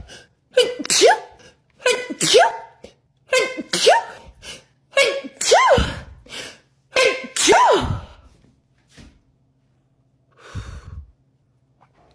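A woman sneezing in a rapid run, about six sneezes roughly a second and a half apart. Each is a rising 'ah' intake ending in a sharp 'choo'. It is an allergy sneezing fit, which she puts down to pollen.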